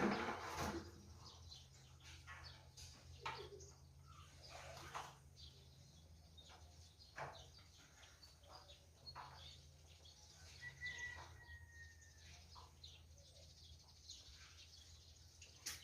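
Faint background of scattered short bird chirps and small clicks over a steady low hum, with one thin, slightly falling whistled note a little past the middle.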